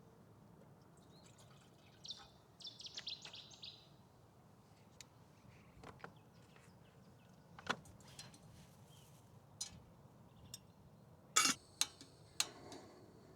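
A songbird twitters briefly, a quick run of high notes a couple of seconds in. Later come several sharp clicks and knocks, the loudest near the end.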